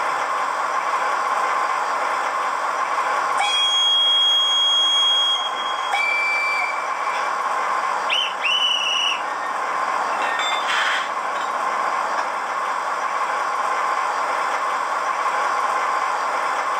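Zimo MS450P22 sound decoder in an H0 model of a T466.0 diesel locomotive, playing the locomotive's engine sound through the model's small speaker: a steady engine drone, with horn blasts on top, a long high one about three seconds in, a lower one around six seconds, then two short blasts near nine seconds.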